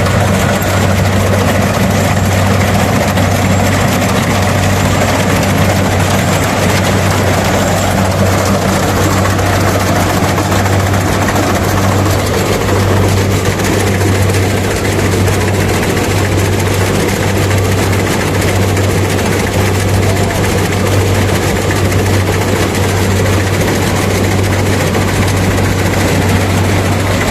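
A heavy engine running steadily at one speed: a deep, even hum under a dense wash of mechanical noise, with no change in pace.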